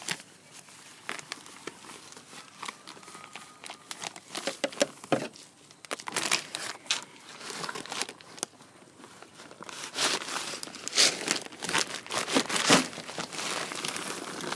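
Bag of feed corn crinkling and rustling as it is handled and scooped from, in irregular bursts that grow busier and louder in the second half.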